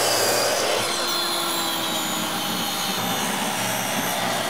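A power saw running steadily with a whine while it cuts PVC trim board.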